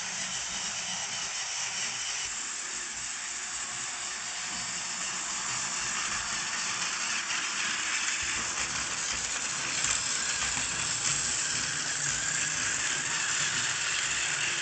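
Plarail E3 series Tsubasa toy shinkansen running on plastic track: a steady whirring hiss from its small battery motor and gears, growing a little louder midway as it comes closer.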